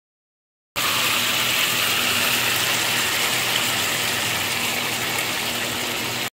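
Curry sauce sizzling in a hot cast-iron skillet as the lid comes off: a steady, even hiss that starts suddenly about a second in.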